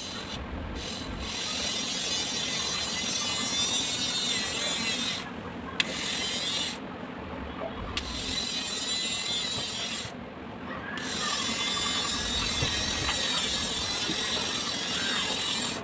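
Small DC motor spinning at speed with a high whine and a rough mechanical rattle. It is switched off and back on three times, as in a test run after repair.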